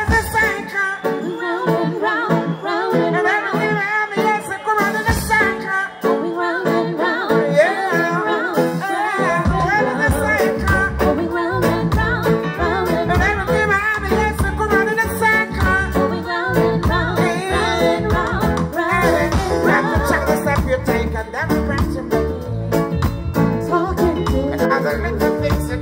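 Live reggae band playing with a male singer. For the first ten seconds or so there is no bass or drums, then the bass and drum beat come in and keep a steady groove.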